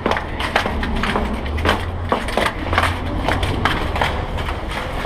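Irregular clicks, knocks and rattles from road bicycles being taken into a concrete pedestrian tunnel, over a low rumble.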